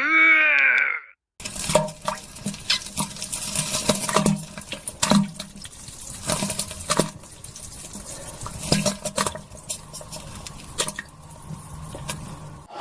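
A short falling groan, then a cartoon pooping sound effect: irregular wet squelches, splats and plops, as of a bowel movement into a toilet, for about eleven seconds.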